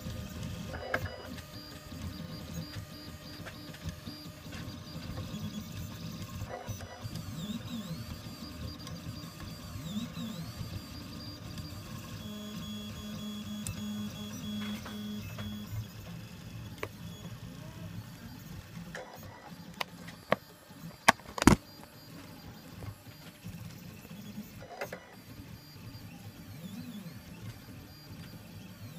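Reach 3D printer's stepper motors whining and buzzing as the print head moves about, the pitch changing with each move and once held steady for a few seconds. A few sharp clicks stand out about two-thirds of the way through.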